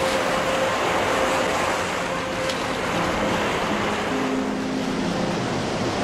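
Sea surf washing in and breaking on a beach, a steady rushing hiss.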